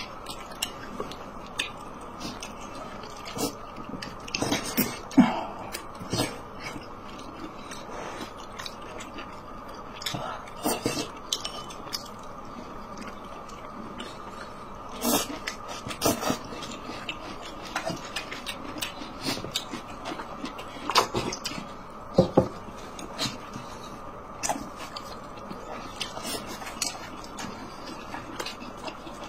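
A person eating close to the microphone: chewing with mouth smacks, and chopsticks now and then clicking against the dishes, scattered at irregular intervals over a steady faint background hum.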